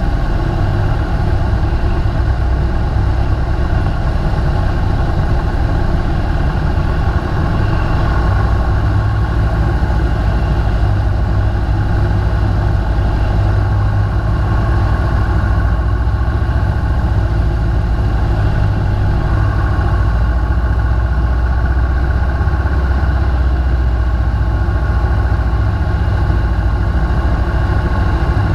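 Light taildragger's piston engine and propeller running steadily on final approach to a dirt strip, heard from inside the cockpit.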